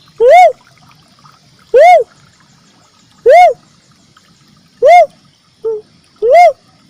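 Uncal merah (cuckoo-dove) call played as a lure: five loud coos about one and a half seconds apart, each note rising and then falling in pitch, with a short quieter note just before the last one.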